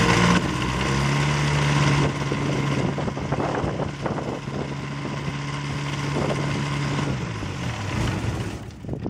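Rotax 532 two-stroke aircraft engine running on a small plane and turning its propeller. Its revs drop about half a second in and then hold steady. Near the end it slows, runs raggedly and shuts down.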